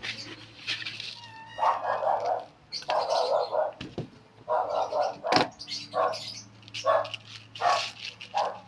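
A dog barking repeatedly, about once a second, in a run of roughly seven barks.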